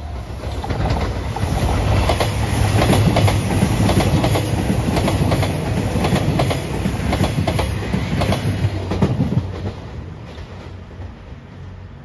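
JR Shikoku 2700 series diesel limited-express train passing close by, its engines running under the clatter of wheels over rail joints. It builds quickly, stays loud for several seconds, then fades after about nine seconds.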